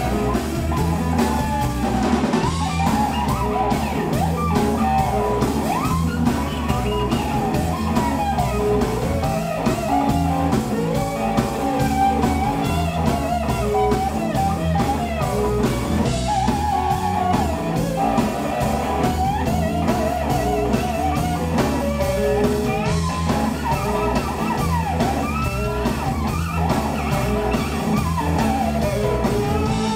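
Live blues band playing an instrumental passage: electric guitars over bass guitar and drum kit in a steady repeating groove, with a lead guitar line of bent, wavering notes.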